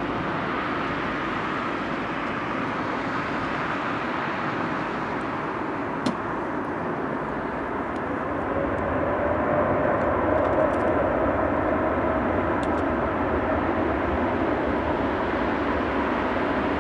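Jet airliner engines running at the airport: a steady rumbling hiss that swells about halfway through, with a faint whine over it. There is one brief click near the middle.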